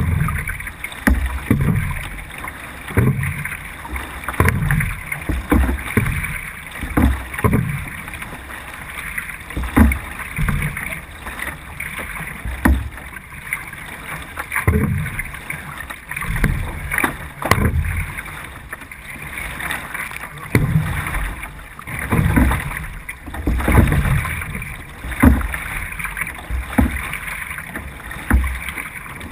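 C1 sprint canoe being paddled hard, a splash and surge of water at each stroke about once a second, over steady water noise along the hull, heard from a camera mounted on the boat's deck.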